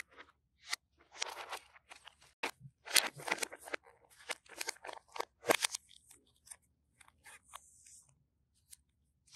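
Gloved hands handling objects: irregular crinkling and rustling with sharp clicks, loudest about three and five and a half seconds in, thinning out in the last few seconds.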